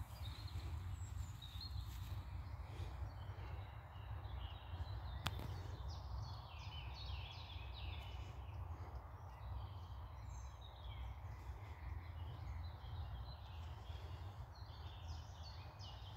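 Wild songbirds chirping and singing, busiest about six to nine seconds in and again near the end, over a steady low rumble. A single sharp click about five seconds in.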